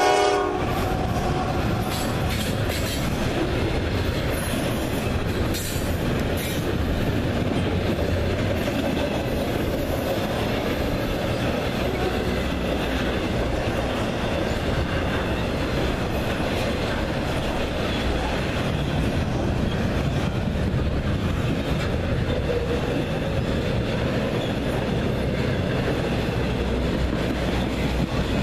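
An intermodal freight train's double-stack container cars and trailer flatcars rolling past: a steady rumble and clatter of steel wheels on rail, with a few sharp clicks in the first several seconds. The locomotive horn cuts off right at the start.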